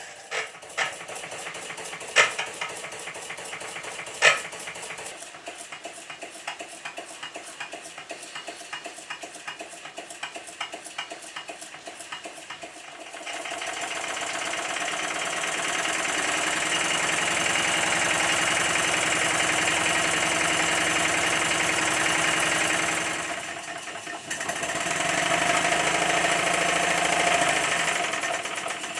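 Model 'Minnie' type live-steam traction engine's single-cylinder steam engine running under test, with a fast, even rhythm of exhaust beats. It starts softer with a few sharp clicks. A little before halfway it gets louder and busier, then eases briefly and picks up again near the end.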